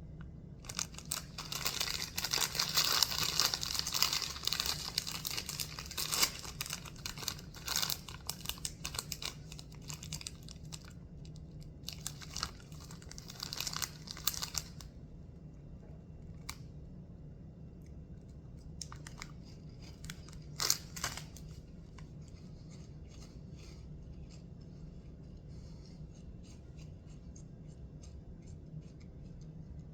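Plastic snack bag of Cheese Doodles baked cheddar puffs being torn open and crinkled, dense and crackly for about the first fifteen seconds. After that come sparser crunches and clicks of the puffs being handled and chewed.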